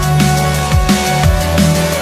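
Background electronic music with a fast, driving drum beat and heavy bass.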